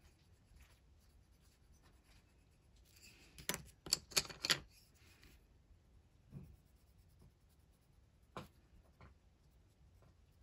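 Brutfuner oil-based colored pencil scratching softly on paper as it is coloured with. About three and a half seconds in comes a quick cluster of sharp clicks as one pencil is put down and another picked up, and a couple of single clicks follow later.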